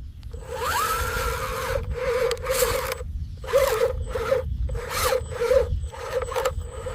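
Small electric motors of a radio-controlled construction model run with a steady, wobbling hum and whine up in short rising runs, about once near the start and again about five seconds in. Repeated bursts of scraping and rubbing sound over them.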